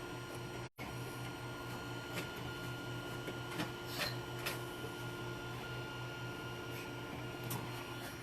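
Creality Ender 3 3D printer running mid-print: a steady hum with stepper-motor tones that shift slightly as the print head moves, and a few faint clicks. The sound cuts out for an instant just under a second in.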